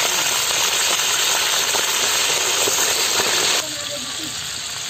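Raw meat pieces frying in hot oil in a large iron wok, a loud steady sizzle. About three and a half seconds in it drops suddenly to a quieter sizzle.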